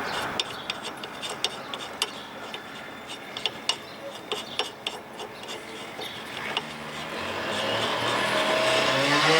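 Hand tools working a suspension bolt on a Porsche Boxster 986's front tuning fork arm: irregular metallic clicks and scraping as a spanner works the nut. A louder, rising drone with a pitch builds up over the last couple of seconds.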